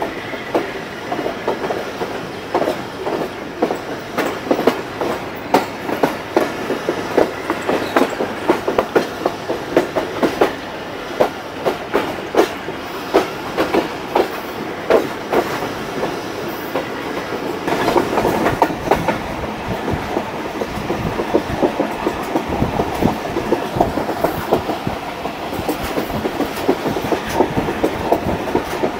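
A moving passenger train heard from on board the 14 Down Awam Express: a steady rumble with the wheels clattering over rail joints in a quick, uneven run of sharp clacks. From about eighteen seconds in the rumble grows louder and rougher.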